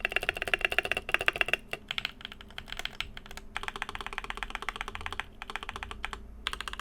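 Fast typing on an ID80v1 mechanical keyboard with lubed Durock Sunflower POM tactile switches and SA keycaps, fitted with PE foam and tape mods, as heard after modding. The keystrokes come in quick runs with a few short pauses, over a faint steady fan hum.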